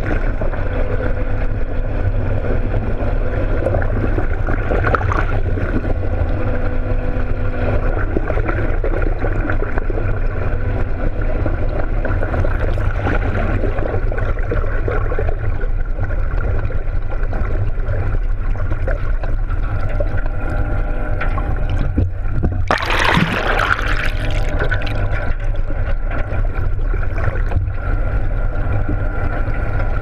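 Sound heard underwater beside a boat's hull: a steady low rush of water against the camera housing, with faint steady hums from the boat underneath. A short splash of bubbles comes about 23 seconds in.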